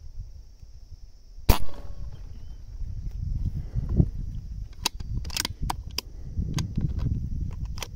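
Beeman air rifle firing a single slug shot about a second and a half in: one sharp crack. Several lighter clicks follow later, over low handling and wind rumble.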